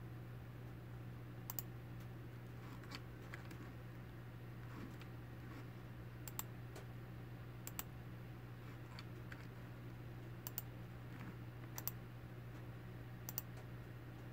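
Faint, sharp clicks or taps, about eight of them, mostly in pairs roughly a second and a half apart, over a steady low hum.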